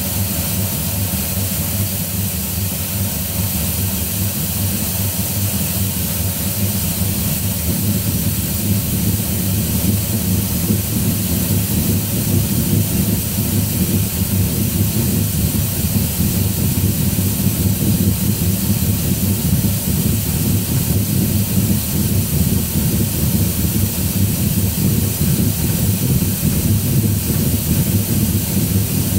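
Home-made lathe slotting attachment, driven by a worm gear motor, running steadily as its tool cuts slots in the bore of a chucked workpiece, over the steady hiss of an air-and-coolant mist spray.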